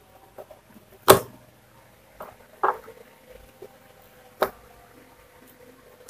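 Three sharp knocks and a few softer clicks as the rewired blender switch block and soldering iron are handled on a wooden workbench, checking that the soldered connections hold. The loudest knock comes about a second in, the others past two and a half seconds and past four seconds.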